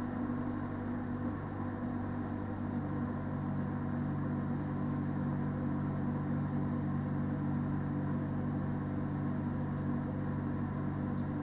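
Parked delivery lorry's engine idling together with its refrigeration unit running, a steady low hum that grows slightly stronger about three seconds in.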